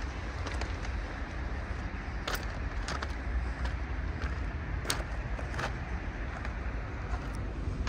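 Outdoor town background noise: a steady low rumble of road traffic, with a few short, sharp clicks scattered through it.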